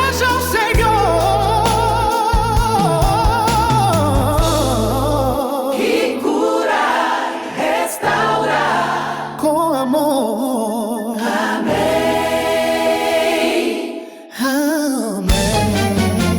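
Gospel music: choir-style voices sing long, wavering notes over a bass accompaniment. Near the end the music briefly drops away, then the band comes back in with a steady beat.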